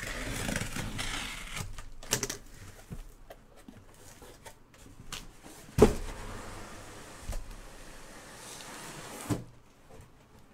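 Cardboard case and boxes being handled: cardboard scraping and rubbing, a few light knocks, and a sharp thump a little before the middle, with another thump near the end.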